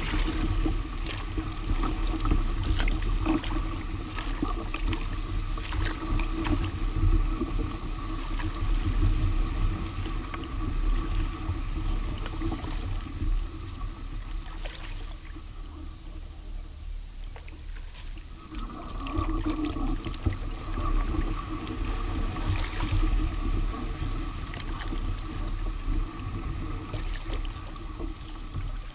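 Kayak being paddled through dense lily pads: paddle strokes and water splashing, with scattered small knocks and a low rumble through the hull. The sound drops off for a few seconds about halfway through, then resumes.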